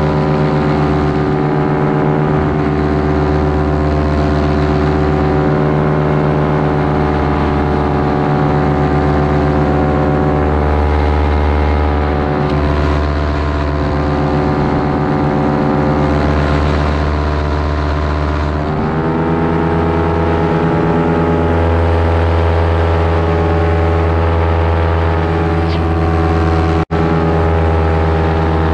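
Vittorazi Atom 80 single-cylinder two-stroke paramotor engine and propeller running steadily in flight. The pitch steps up a little about two-thirds of the way through as the throttle is opened, and the sound cuts out for an instant near the end.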